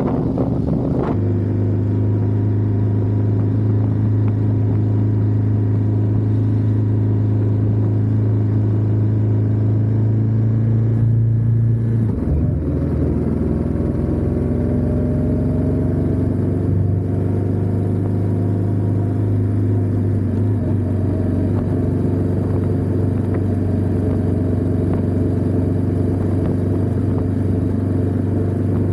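Ducati Diavel 1260S's 1262 cc V-twin engine running under way. It shifts gear about twelve seconds in, with a short break and a drop in pitch, then slowly picks up revs again.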